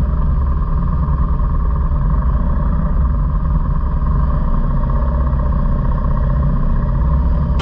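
Motor vehicle on the move: a loud, steady mix of engine and wind noise, heaviest in the low end.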